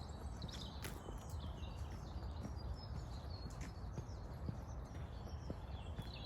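Small birds chirping and singing in short phrases, over a steady low rumble. Soft footsteps land about once a second on a path.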